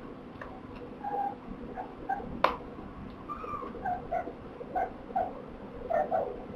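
Young kittens mewing: about ten short, high squeaks, some in quick pairs, from about a second in. A single sharp click sounds about two and a half seconds in.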